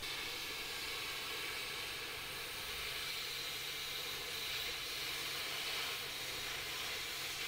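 Oxy-fuel cutting torch hissing steadily as it burns through a bolt on an old truck's front frame.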